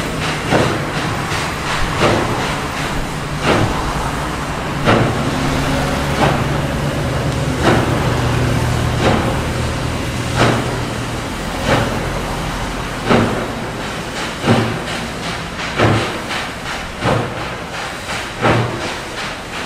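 SY-class 2-8-2 steam locomotive working a loaded coal train. Its exhaust beats sharply and slowly, about one strong beat every second and a half, over a steady low rumble.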